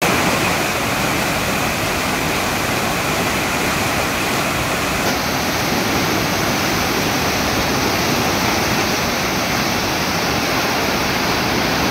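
Floodwater rushing and churning over a low wall and around pillars: a loud, steady wash of turbulent water from a river in spate.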